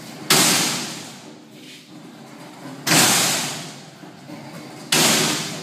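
Steel slam door of a livestock weigh cage dropping shut three times, about two seconds apart, worked by a pull rope. Each is a loud bang that rings out for about a second.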